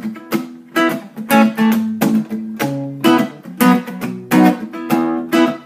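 Acoustic guitar strummed in a steady rhythm, chords ringing between strokes, with no singing.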